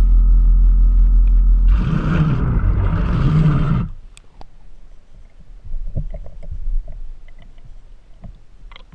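Home-built ROV's thruster motors heard underwater: a steady low electric hum, turning into a louder churning noise about two seconds in. About four seconds in they stop, leaving only faint scattered clicks and knocks.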